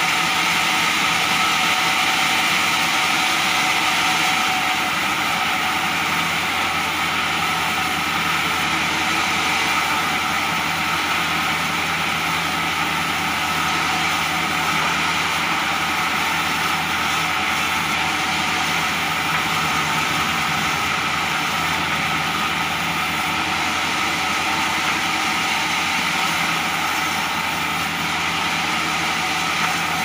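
Sawmill bandsaw running steadily as jati Belanda (Dutch teak) boards are fed through it, a constant machine drone with several steady tones and no pauses.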